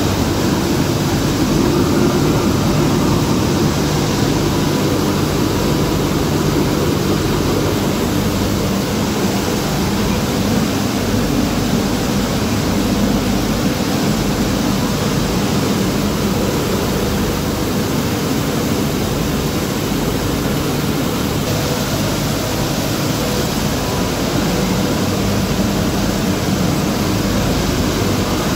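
PCB (motherboard) crushing and sorting line running: a steady, loud machine noise with a faint constant hum.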